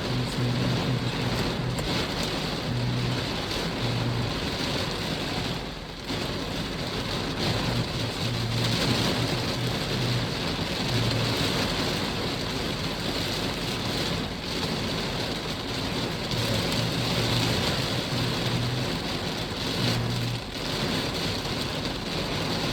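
Heavy rain falling steadily, a dense, even hiss of a downpour.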